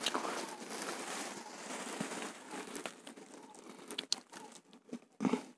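Rustling, crinkling noise on the microphone, steady for about three seconds, then fading into a few scattered clicks and crackles.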